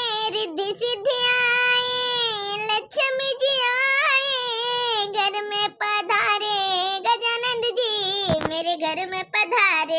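A high-pitched voice singing a Bhojpuri wedding welcome song for the daughter and son-in-law, unaccompanied, in long held notes that waver in pitch.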